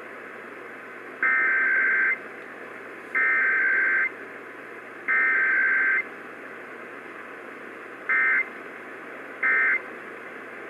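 Emergency Alert System SAME data bursts over AM radio: three long, harsh digital buzzes about a second apart (the header), then after a short pause three brief buzzes of the same kind (the end-of-message code), with no attention tone between them, a sign of the failed monthly test.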